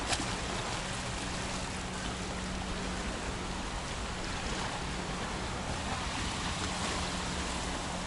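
Calm sea washing against a concrete breakwater and a pebble beach: a steady, even rush of small waves, with a faint steady low hum underneath and a short click just after the start.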